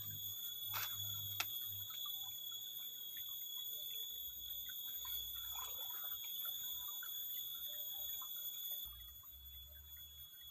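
A steady high-pitched whine with overtones runs throughout, with two faint sharp clicks about a second in and scattered faint outdoor ticks.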